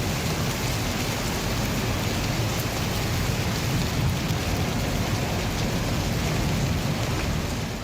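Steady heavy rainfall, a dense even hiss with a low rumble underneath.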